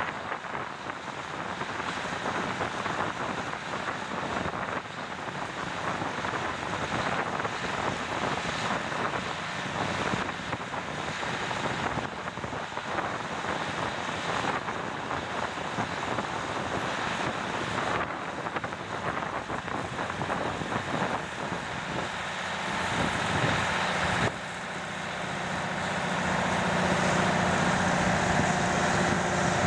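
Steady engine noise, with a low droning hum that comes in about two-thirds of the way through and grows louder near the end.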